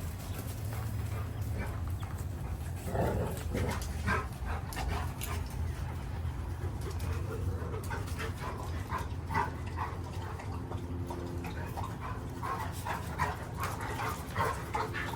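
Dogs whimpering and giving small yips and whines, with short high cries scattered throughout, over a steady low hum.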